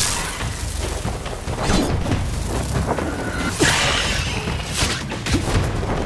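Action sound effects for an animated fight: repeated booms, crashes and sharp impacts with rushing whooshes over a steady low rumble, under background music.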